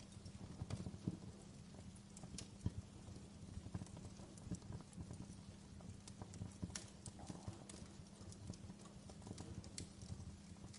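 Wood fire burning in a fireplace, a steady low rumble of the flames with irregular sharp crackles and pops throughout.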